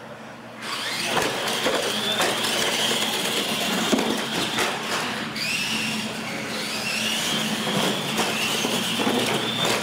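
Two electric R/C monster trucks launching and racing across a concrete floor. A high motor and gear whine rises and falls with the throttle over a rush of tyre noise, with sharp knocks as they hit the ramps.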